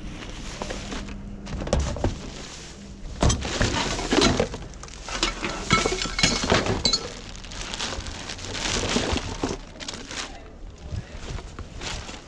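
Rummaging through a pile of discarded household rubbish: bottles and glass items clinking and knocking together in a string of irregular clatters, some with a short ring.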